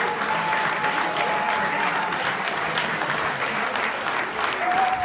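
Audience applauding, dense continuous clapping, with a long steady high whistle held for a couple of seconds near the start and another beginning near the end.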